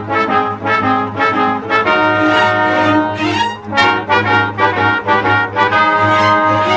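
Background music: a quick run of short, sharply attacked notes over a steady low held tone.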